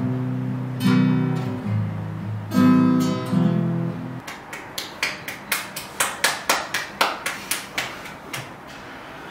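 Acoustic guitar strummed in chords that stop about four seconds in. A run of sharp clicks follows, about three or four a second, fading out near the end.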